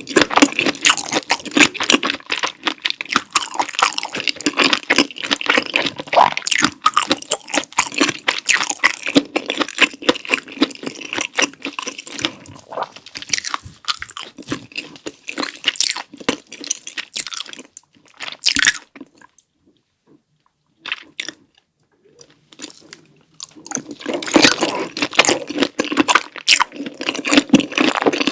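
Close-miked chewing and biting of Carbo Buldak noodles and sausage in cheese sauce: dense, irregular wet clicks and crunches. They thin out after about twelve seconds and stop for a few seconds about two-thirds of the way through, then resume just as thickly.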